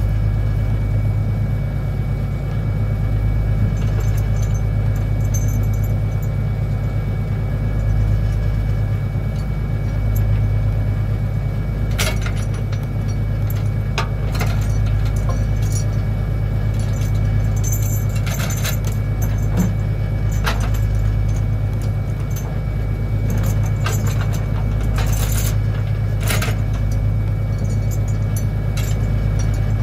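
Trawler's engine drones steadily and low, with repeated sharp metallic clinks and rattles of chain and deck gear, mostly in the second half.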